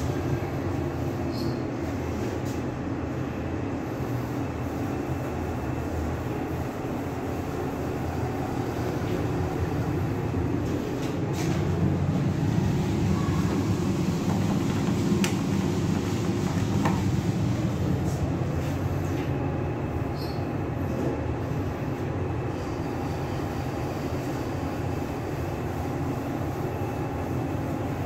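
XiZi OTIS passenger elevator car in motion: a steady low rumble and hum of the ride, louder through the middle, with two short high beeps from the car.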